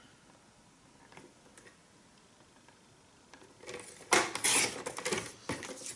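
Sliding-blade paper trimmer cutting through cardstock: a scraping rasp lasting about two seconds, starting about three and a half seconds in, after a few faint clicks.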